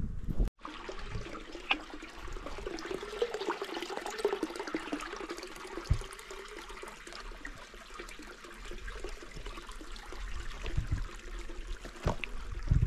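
Water running with a steady rushing sound, broken by a few sharp knocks.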